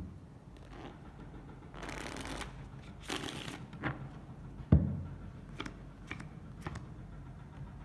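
A deck of playing cards being shuffled and handled by hand: two short riffling rustles about two and three seconds in, then a sharp knock near the middle, the loudest sound, followed by a few light clicks of the cards.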